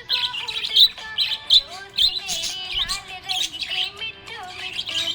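Budgerigar chirping and warbling: a rapid, continuous run of high chirps mixed with lower wavering notes, typical of a contented budgie.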